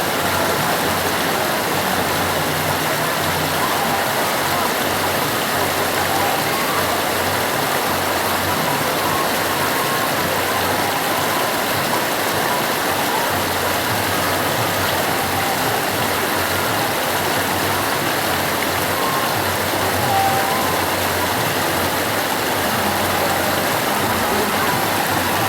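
The Ganges river rushing steadily: a constant, even wash of fast-flowing water.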